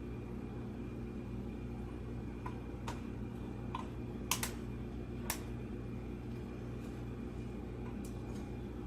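Scattered sharp clicks and taps of computer hardware being handled in an open PC case, about half a dozen spread irregularly and loudest around the middle, over a steady low hum.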